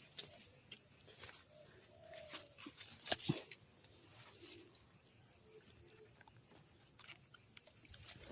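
Crickets chirping steadily in a fast, high-pitched pulse, with a few faint clicks and rustles, one sharper click a little after three seconds in.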